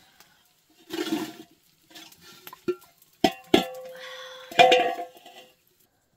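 Metal cookware clanking: two sharp knocks about three seconds in and another about a second later, each followed by a brief ringing tone. A short rush of noise comes about a second in.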